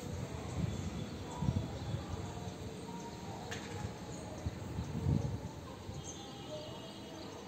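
Quiet outdoor ambience with faint bird chirps, a few low rumbles, and a single sharp click about three and a half seconds in.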